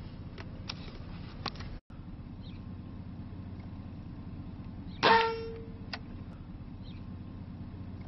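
A single shot from a Benjamin Marauder .22 PCP air rifle about five seconds in: a sharp crack with a short ringing tone that dies away within half a second. Under it runs a steady low background rumble, with a few faint clicks earlier and one more about a second after the shot.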